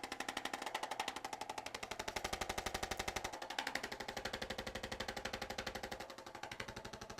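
Handheld percussive instrument tapping rapidly and evenly against the body, about a dozen taps a second, with the ringing pitch changing a few times as it is moved to new spots.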